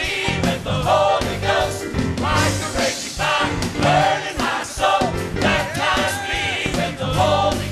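Gospel choir singing live with instrumental accompaniment, voices rising and falling over steady sustained low notes.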